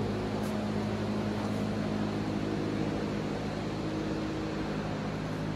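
Steady mechanical hum of building ventilation or air-handling fans, an even drone with a low steady tone and a light hiss.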